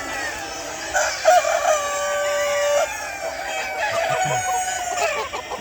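Several roosters crowing, long drawn-out crows overlapping one after another; the loudest starts about a second in.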